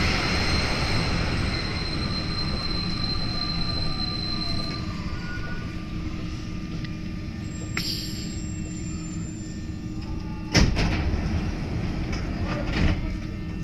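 Inside an NS-93 rubber-tyred metro train slowing to a stop at a station: the running noise and a high whine fade away over the first few seconds. A sharp bang comes about ten and a half seconds in.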